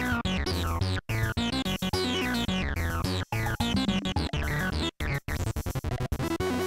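Polivoks analogue synthesizer playing a repeating sequenced pattern, with low bass notes under bright tones that fall sharply in pitch every second or two. The pattern is broken by brief gaps of near silence.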